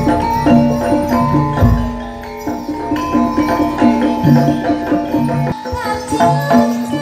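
Traditional Javanese gamelan-style music: metallophones ring a repeated melody over drums, with a deep low stroke about a second and a half in.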